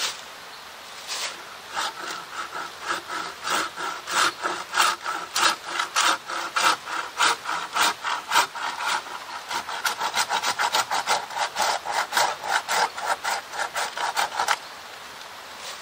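Hand saw cutting through a dead, resin-rich branch (fatwood) in steady back-and-forth strokes, about two a second at first, quickening to about three a second in the second half. The sawing stops about a second before the end.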